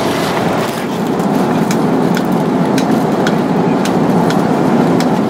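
Steady roar inside the cabin of an Airbus A330 airliner in cruise flight, with scattered faint ticks.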